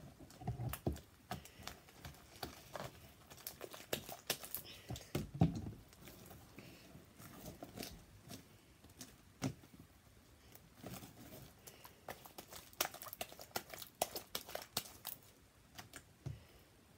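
Very sticky homemade slime being kneaded and stretched by hand, making irregular sticky clicks and small pops as it pulls away from the fingers and the table. Body wash mixed into the slime is what makes it so sticky.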